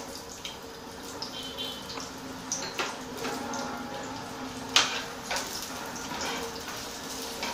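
Chunks of onion sizzling in hot oil in a frying pan, with a spatula scraping and knocking against the pan a few times as they are stirred; the sharpest knock comes a little under five seconds in.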